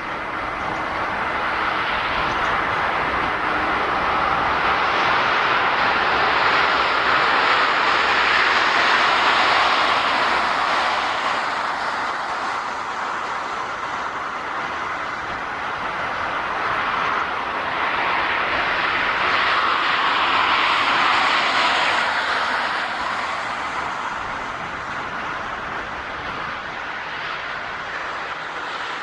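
Jet engine noise of a Boeing 737-400's CFM56 turbofans as the airliner lands, a steady rushing sound that swells twice, about a third of the way in and again about two thirds in.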